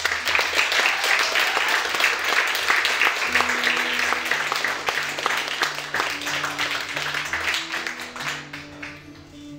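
Audience applauding, loud at first and fading away over the last couple of seconds. From about three seconds in, an acoustic guitar picks a slow run of single notes underneath.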